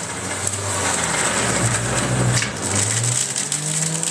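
Electric centrifugal juicer running noisily, its motor whining as orange pieces are pushed down the feed chute and shredded. The motor's pitch wavers under the load, then rises and steadies near the end.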